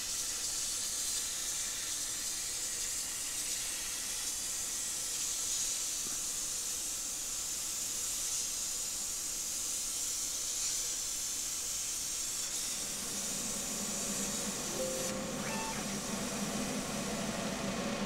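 CNC plasma cutter's torch hissing steadily as the arc cuts 22-gauge sheet steel. Past the middle, a lower hum and a few faint steady tones join the hiss.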